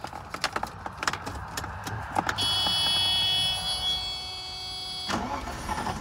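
Mercedes 420SEL's 4.2-litre V8 being cranked by its starter motor after a few clicks from the cabin controls. A steady whine runs for about three seconds and cuts off suddenly; the engine, which has a misfire, will not stay running.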